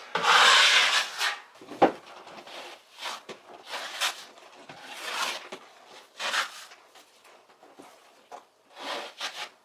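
Wide drywall knife scraping thin joint compound across a wall in a skim coat. One long stroke in the first second is the loudest, then shorter scraping strokes follow every second or so.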